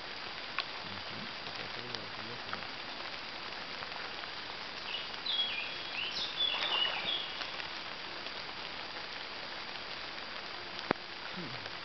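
Steady hiss of light rain on leaves and water. About halfway through, a songbird sings a short phrase of stepped high notes, and a single sharp click comes near the end.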